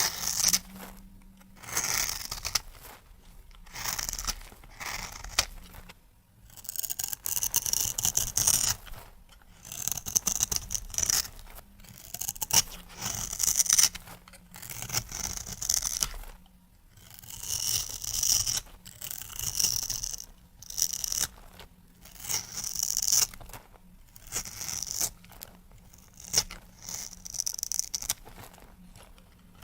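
A knife cutting a bar of soap into cubes. There is a crisp, scraping crunch with each stroke through the soap, repeated every second or two.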